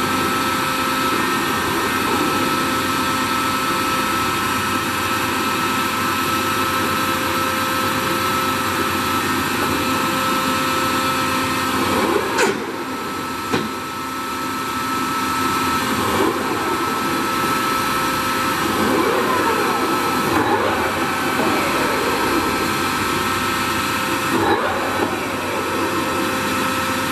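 A Toolmex TUR 560 M engine lathe running under power, its geared drive giving a steady mechanical whine with a high fixed tone. Several times the pitch glides up or down as the drive speeds up or slows, and a few sharp clunks come as levers are shifted.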